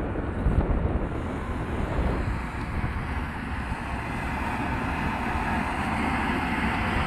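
Heavy diesel earthmoving machines running steadily: first near a Caterpillar 140H motor grader, then, from about two seconds in, a Caterpillar CS-533E vibratory smooth-drum compactor rolling over loose gravel to compact it.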